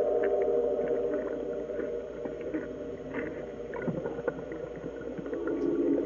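Low sustained synthesizer drone of several held tones, shifting to a lower chord near the end, with faint scattered clicks.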